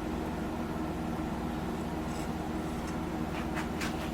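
Steady low background hum in a small room, with a few faint brief scrapes a little before the end.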